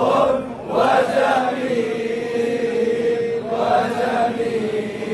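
Large crowd of men chanting an Arabic devotional song in praise of the Prophet in unison, holding long drawn-out notes, with a brief break about half a second in.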